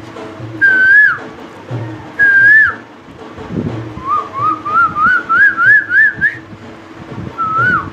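A man imitating the call of the Asian koel with his voice, in whistle-like notes. There are two single calls, each held and then dropping at the end, then a run of about nine short notes that climb steadily in pitch. One more call comes near the end.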